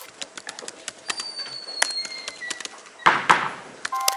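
Typing on a MacBook Air laptop keyboard: a rapid, uneven patter of key clicks. A short, loud rush of noise comes about three seconds in, and a few faint whistle-like tones sound in the middle.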